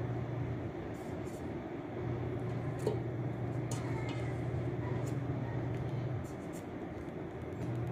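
A steady low hum with a noisy background, which drops away twice for a second or so. Over it, faint light clicks as carrot slices are set down on eggplant rounds in a stainless steel pot.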